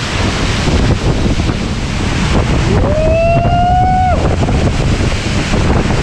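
Uchan-Su waterfall in flood: a loud, steady rush of falling water mixed with strong wind buffeting the microphone. About three seconds in, a short pitched sound rises and then holds for about a second.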